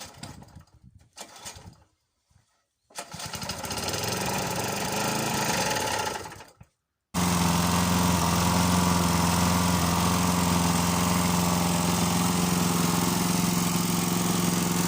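Small lawnmower engine running in two separate clips. The first comes in about three seconds in, swells and fades away. After a short gap the second starts abruptly and runs loud and steady with a strong low hum.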